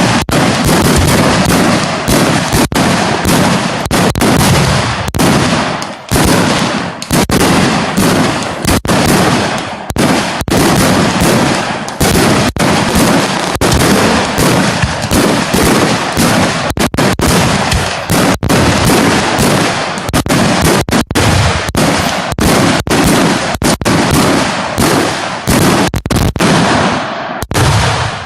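Fireworks going off in a rapid, nearly unbroken barrage of bangs and crackling, which dies away just before the end.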